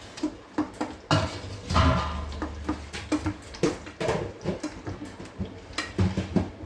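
Hand masher mashing cooked dal in a pot, with irregular knocks and clatters as it strikes the pot.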